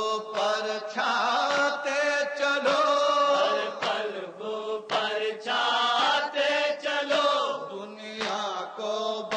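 A man reciting an Urdu noha, a Shia lamentation, in a chanted melody, phrase after phrase with short breaks, over a steady low drone.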